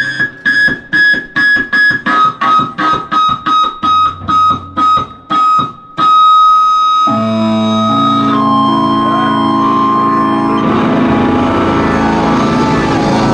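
Live rock band with electric guitar playing short staccato chord stabs, about three a second. About six seconds in they switch to loud held chords, and from about ten seconds in the full band plays flat out.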